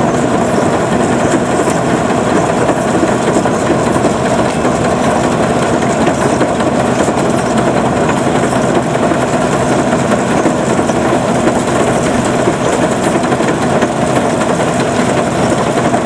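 Homemade Vietnamese rice combine harvester running steadily as it cuts and threshes standing rice: a loud, constant mix of engine noise and rattling machinery.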